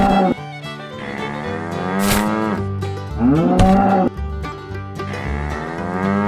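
A cow mooing several times, each call rising and then falling in pitch, over background music.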